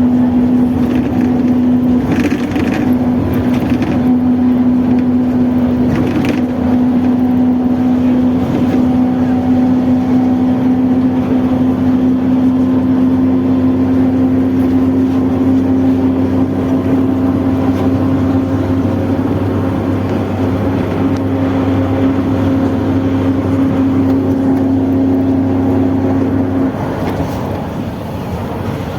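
Mercedes-Benz OF-1721 bus under way with its driveshaft growling loudly: a steady droning tone holding one pitch over the running diesel, easing off near the end.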